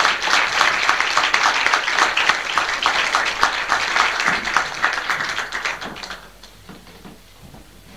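Audience applauding, the clapping fading out about six seconds in.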